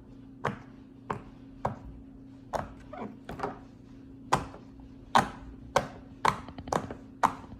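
Silicone push-pop fidget (a round rainbow poppet) with its bubbles pressed one after another: a string of sharp pops, about two a second, unevenly spaced.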